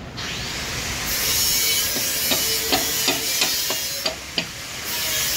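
Engine-overhaul work on a cylinder block during sleeve fitting: a steady hiss and a quick run of about seven light metallic taps, about three a second.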